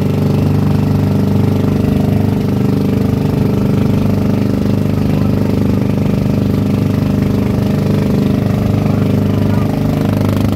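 Small inboard engine of a motorized outrigger boat (bangka) running steadily at cruising speed, a loud, even drone.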